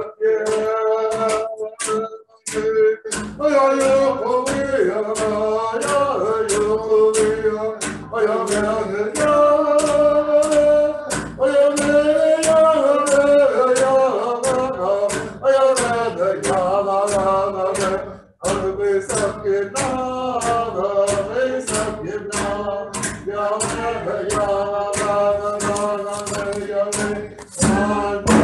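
Iñupiaq drum song: voices singing together over sharp, evenly spaced drum beats about two a second, with a brief pause about eighteen seconds in.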